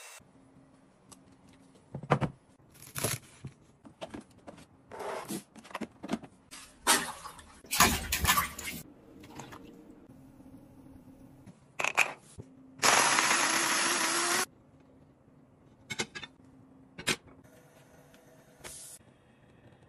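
Kitchen handling sounds: a string of sharp clicks, knocks and clatters as containers and utensils are set down and moved. A little past the middle comes a loud, steady hiss lasting about a second and a half.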